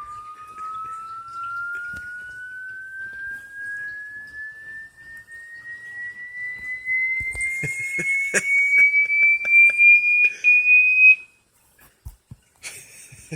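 A single pure electronic tone played through a speaker, gliding slowly and evenly upward in pitch and cutting off suddenly about eleven seconds in. From about seven seconds in, a string of short taps and knocks sounds over it, and a brief rustle follows near the end.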